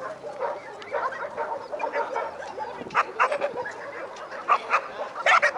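Dogs barking in repeated short barks, the loudest ones coming in the second half.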